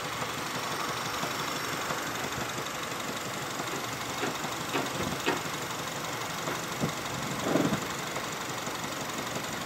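Honda Civic four-cylinder engine idling steadily with a slight knock, which the owner takes for a bad connecting rod. A few light clicks come about halfway through, and a louder thump near the end.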